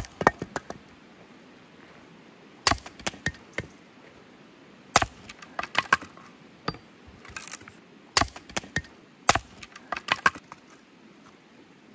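Axe splitting firewood on a wooden chopping stump: sharp chops that come in clusters every two or three seconds, each strike followed by a few lighter knocks and cracks of the wood.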